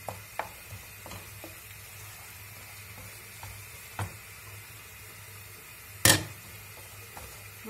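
Salça paste sizzling as it fries in a pan, with a few light utensil clicks. A single loud knock comes about six seconds in.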